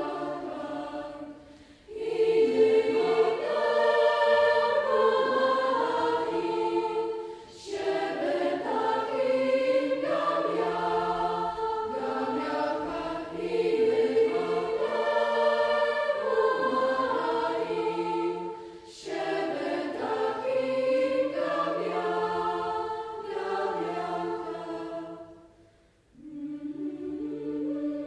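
A children's and youth choir singing in harmony, phrase after phrase, with short breaks between phrases, the longest near the end.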